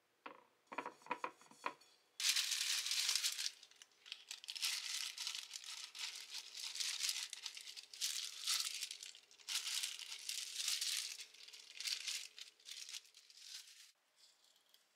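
A few clicks, then crinkling and rustling in bursts of one to two seconds with short pauses, like something being handled or unwrapped; it stops about a second before the end.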